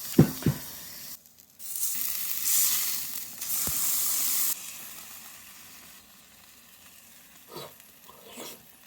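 Barbecue food sizzling on a small grill over a solid-fuel burner. After a couple of sharp clicks, the sizzle comes in loud about a second and a half in, then drops off sharply a few seconds later and dies to a faint hiss.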